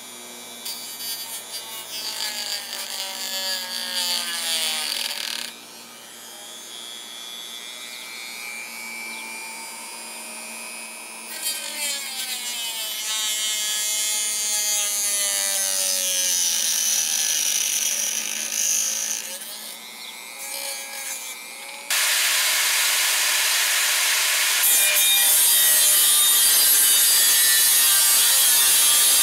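Handheld rotary tool with a cut-off wheel cutting a metal piece held in a vise, its high whine rising and falling as the wheel bites and eases off. About two-thirds of the way through, a louder, harsher angle grinder cutting metal takes over.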